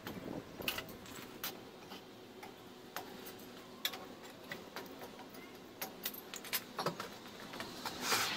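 Irregular light metallic clicks and clinks as a long lug wrench turns the lug nuts off the front wheel of a jacked-up 2002 Honda Civic, with a louder clatter near the end.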